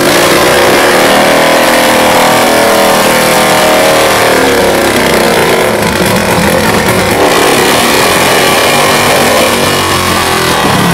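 Nitro-burning Top Fuel Harley drag bike's V-twin engine revving hard and loud during a burnout, the rear tyre spinning and smoking to heat it before a run; the pitch swells and dips with the throttle.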